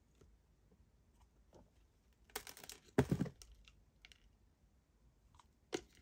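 Faint clicks and taps of plastic cups and metal tweezers being handled inside a clear plastic enclosure. There is a short rustling scrape a little over two seconds in, a louder knock about three seconds in, and a sharp click near the end.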